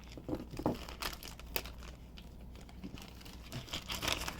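Packaging of accessory parts being opened and handled: irregular crinkling and tearing with scattered small clicks.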